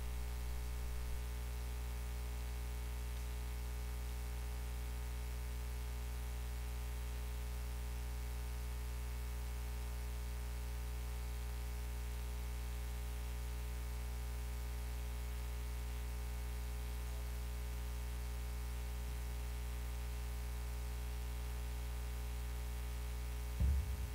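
Steady electrical mains hum over a faint hiss, with a brief low thump near the end.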